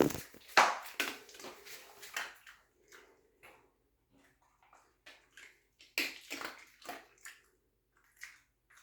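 A dog at its food bowl: irregular wet smacking and licking sounds, coming in clusters with short quiet gaps.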